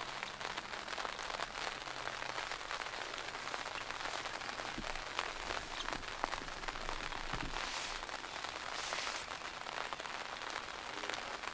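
Rain falling steadily, a dense pattering of small drops with a few louder single drop hits.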